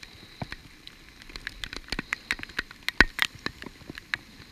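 Heavy rain: irregular sharp taps of raindrops striking close by, several a second over a faint hiss, the loudest about three seconds in.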